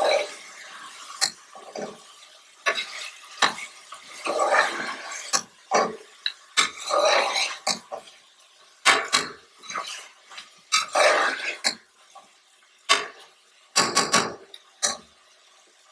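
Metal spoon and slotted spatula scraping and clinking against the inside of an aluminium pressure cooker as mutton pieces are stirred into a thick masala, in irregular strokes with sharp clicks.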